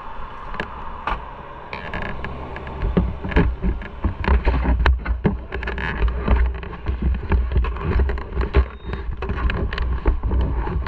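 Wind buffeting the microphone in a low, unsteady rumble, with irregular knocks and rustles from the camera being handled and moved.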